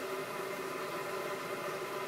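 Navien CH-210 condensing gas boiler firing: a steady howl made of several held tones over an even rushing hiss. The owner puts the howl down to the heat exchanger under fire and takes it for an abnormal noise in a four-month-old unit.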